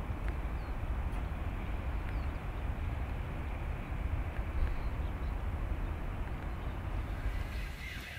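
Steady outdoor background rumble, heaviest in the low end, with a few faint bird chirps over it; it drops a little in level near the end.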